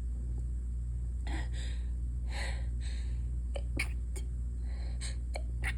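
A stuffed-up woman's short, sharp inhalations and sniffs as she holds back a sneeze, several breaths a second or so apart, with a few faint clicks. A steady low hum lies underneath throughout.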